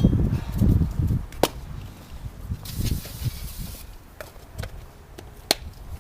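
Sharp clicks and knocks of work on a rusted brake hub, with a hiss of aerosol brake cleaner being sprayed for about a second midway. A low rumbling noise fills the first second.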